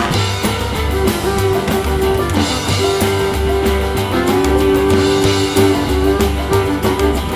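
Blues-rock band playing an instrumental passage: guitar over bass and drums with a steady beat, and long held notes from about the middle onward.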